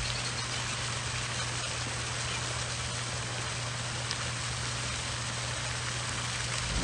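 Pond fountain's spray falling back onto the water: a steady splashing hiss, with a low steady hum underneath.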